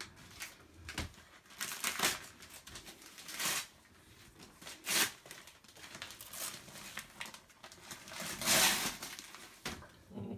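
Christmas wrapping paper rustling, crinkling and tearing as a present is handled and unwrapped, in a string of short bursts with the longest tear near the end.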